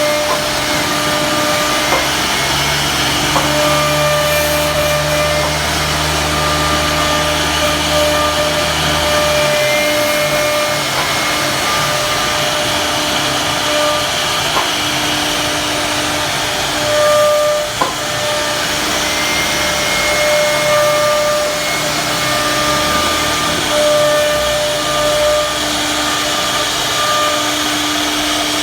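CNC router cutting a wood panel: a steady loud hiss with a whine from the spindle, its tones dropping in and out as the cut goes on, and a lower hum for the first several seconds.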